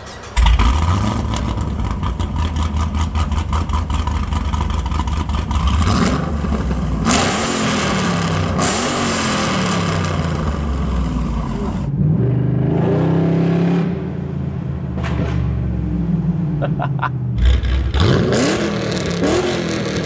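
Chevrolet Caprice PPV's LS V8 with a loud aftermarket exhaust catching about half a second in and idling steadily, then revving up and down several times as the car moves off and drives.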